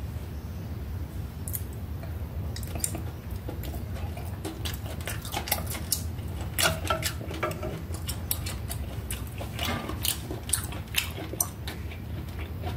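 Light, irregular clinks and ticks of chopsticks and dishes, scattered through most of the stretch over a low steady hum.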